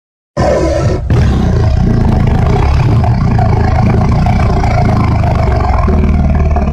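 Monster roar sound effect from the Godzilla films: a short opening blast, a brief break about a second in, then one long roar lasting about five seconds that fades out at the end.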